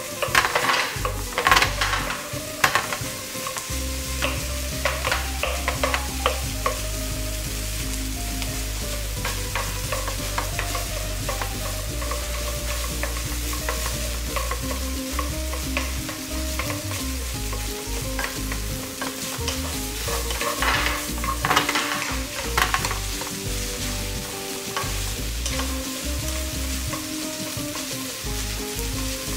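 Fried rice sizzling in a nonstick frying pan while a wooden spatula stirs and scrapes through it. There are bursts of quick scraping strokes in the first few seconds and again about two-thirds of the way through.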